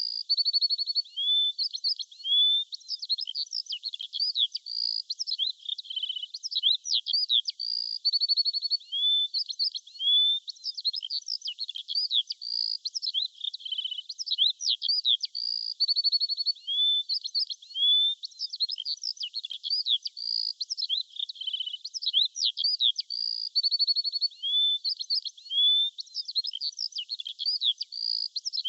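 Songbirds chirping without pause: quick high chirps, short rapid trills and upward-slurred whistles, with no low background sound beneath them.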